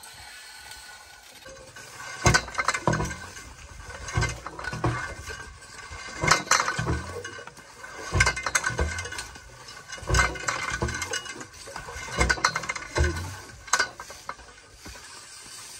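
Manual percussion boring for a hand-pump borewell: a steel drilling pipe is hauled up by rope and dropped into the bore, giving a thud with a metallic clank about every two seconds, often as a quick double hit.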